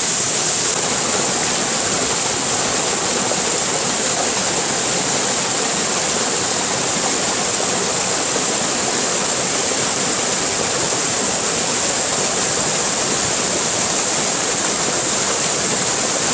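Waterfall: water pouring and splashing in a constant, even rush with a strong hiss.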